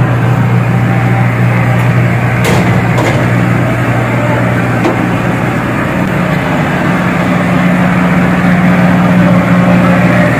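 Steady low drone of the moored ferry's engines. A couple of faint clicks come about two and a half and three seconds in.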